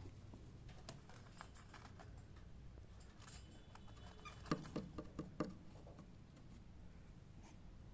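Faint, scattered light clicks and taps, with a quick run of about six taps a little past the middle, from a cockatiel moving about.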